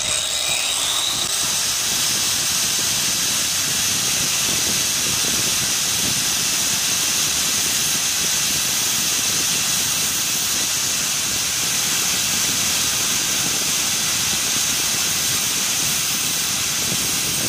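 Angle grinder fitted with a diamond-coated disc, starting up and then running steadily with a high hiss while it grinds the secondary cut on a twist drill bit's tip.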